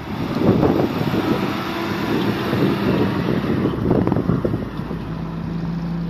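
UAZ off-road vehicle's engine running under load as it works free of deep snow, with wind buffeting the microphone; about five seconds in the engine note settles to a steady drone.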